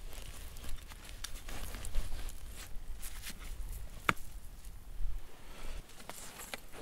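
A flat stone set down on the lid of an aluminium milk can with one sharp clink about four seconds in, among light scattered clicks and scraping.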